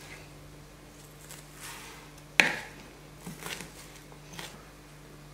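Small kitchen knife chopping a shallot on a plastic cutting board: a few scattered soft cuts, with one sharp knock of the blade on the board about two and a half seconds in.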